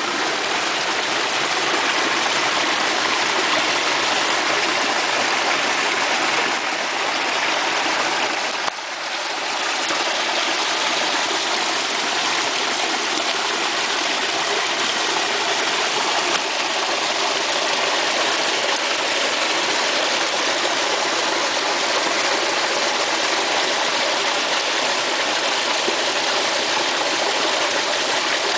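Shallow jungle stream running over mud and leaf litter: a steady, unbroken rush of water, with a brief dip in level about nine seconds in.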